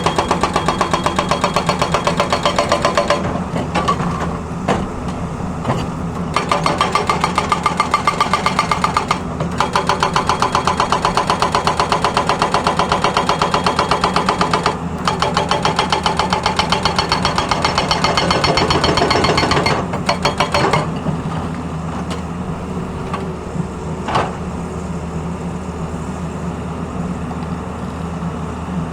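Excavator-mounted hydraulic breaker hammering in rapid, evenly repeated blows, in long runs with brief pauses. About 21 seconds in the hammering stops and the Tata Hitachi excavator's diesel engine is left running steadily.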